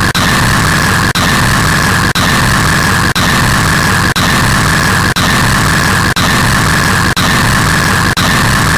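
Very loud, harsh static noise, a dense hiss with no pitch, broken by a brief dropout about once a second, as if a short loop repeats.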